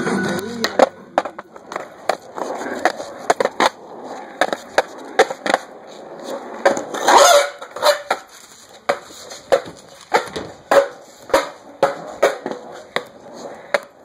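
Footsteps on concrete and the knocking and rubbing of a handheld phone being carried while walking. The sharp clicks settle into a walking beat of about two a second in the second half, with a louder noisy burst about halfway through.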